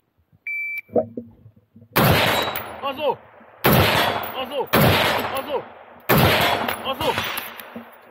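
Shot timer's electronic start beep, then four loud gunshots about a second or so apart, each with a long echoing tail.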